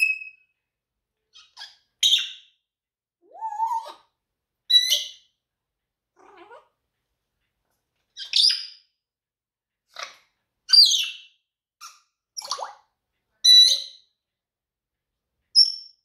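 African grey parrot making a string of short, separate whistles, clicks and squawks, about one a second, with one whistle sliding upward.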